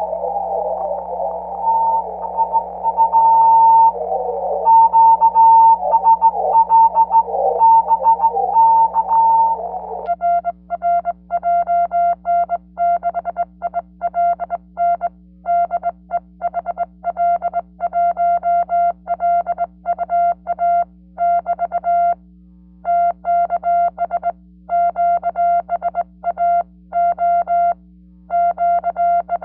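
Morse code from a 40 m transceiver: for about ten seconds a keyed tone comes through a wash of band noise. Then the noise drops out and a cleaner tone keys on and off in Morse rhythm: the sidetone of the operator's own sending on a GHD GT705A straight key. A steady low hum runs underneath.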